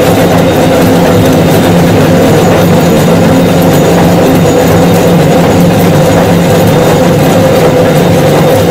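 Metal lathe running steadily, spinning a thin metal jug shell on a form while a steel bar is pressed against its rim: a loud, even mechanical rumble with a steady hum and a scraping hiss.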